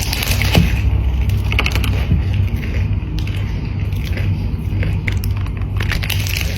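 Close-miked eating: a person biting and chewing crunchy food, with a run of sharp crunches over a steady low hum.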